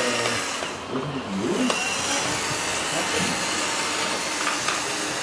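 Radio-controlled hydraulic scale wheel loader whirring steadily, its electric pump and drive motors running as it drives and raises its bucket, over background crowd chatter.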